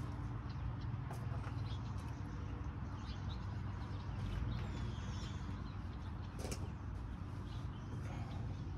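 Outdoor ambience: a steady low rumble with a few faint bird chirps and occasional light clicks.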